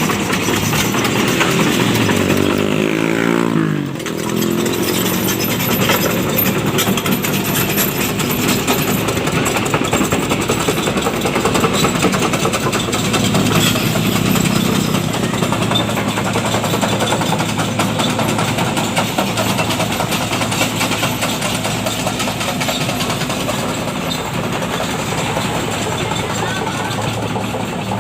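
Excavator passing: its diesel engine note sweeps in pitch during the first few seconds, then gives way to a steady, dense mechanical rattle.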